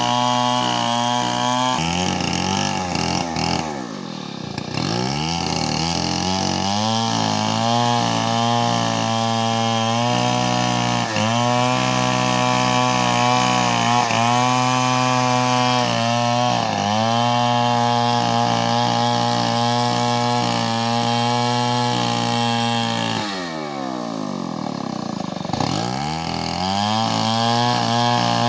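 STIHL chainsaw at high revs, ripping a coconut trunk lengthwise. The engine note drops twice, a few seconds in and near the end, then climbs back to full speed.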